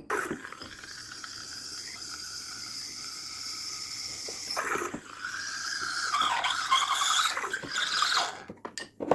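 Silvercrest SEM 1100 C3 espresso machine's milk frother being flushed with clean water. Steam and water hiss through it steadily, and about halfway through the sound turns to a squealing, sputtering gurgle that stops near the end.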